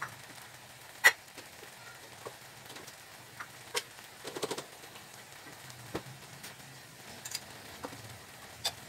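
Sparse small clicks and crackles over a faint low hum, with one sharp click about a second in and a short cluster of taps about four and a half seconds in.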